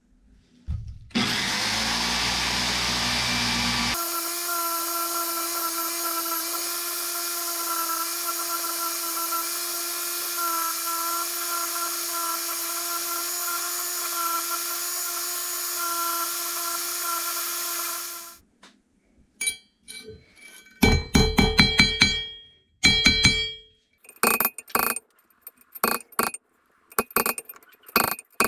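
An electric power tool starts with a rough low rumble, then runs at a steady whine for about fourteen seconds before stopping. After it stops come a series of sharp metallic clicks and ringing knocks, like metal parts or a tool being handled and set down.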